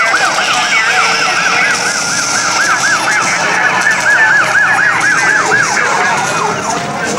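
Siren in a fast up-and-down yelp, about four sweeps a second, over a steady hiss.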